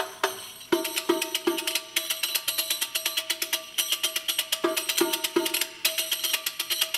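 Riq, the Arabic frame tambourine, played solo in a fast rhythm: quick rolls and rattles of its metal jingles, with deeper strokes on the head now and then. There is a brief pause near the start before the playing picks up again.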